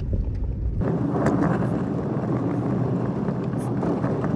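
Truck driving: a low road rumble that changes abruptly about a second in to a rougher, hissing road noise.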